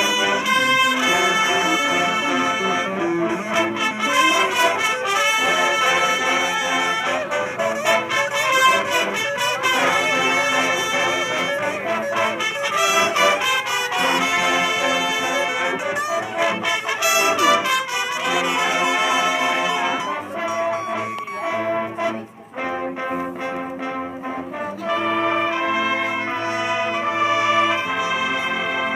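High school marching band playing a loud brass-led passage of sustained chords. The music dips briefly about three-quarters of the way through, then comes back with a held chord that cuts off near the end.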